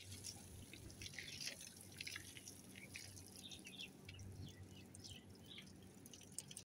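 Faint water dripping and splashing in small irregular drops while a hose is played over an elephant's trunk and tusk.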